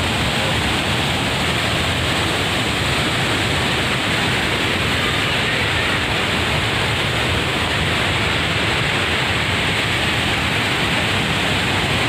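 Steady rushing of the Hogenakkal waterfall's cascading water, an even roar with no change in level.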